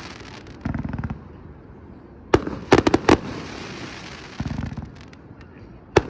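Aerial fireworks shells bursting: a deep boom about a second in, a cluster of sharp, loud bangs around the middle, another deep boom, then a sharp crack near the end.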